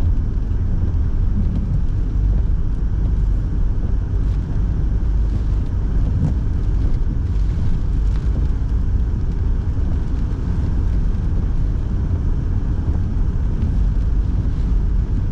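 Steady low rumble of a car driving, heard from inside the cabin: engine and road noise with the heater fan blowing.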